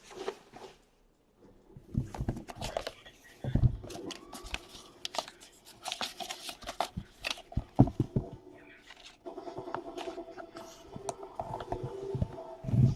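Plastic wrap crinkling and tearing in irregular crackles, with scattered clicks and knocks of a sealed trading-card box being handled and opened.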